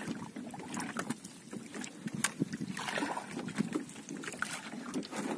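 Water lapping and sloshing against the hull of a small wooden outrigger boat, with scattered light clicks and knocks.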